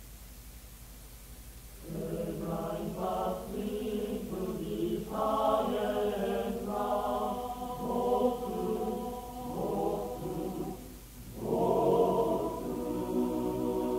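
Male-voice choir singing a part-song in German, apparently unaccompanied. It comes in about two seconds in, falls back briefly near the eleventh second, then swells again.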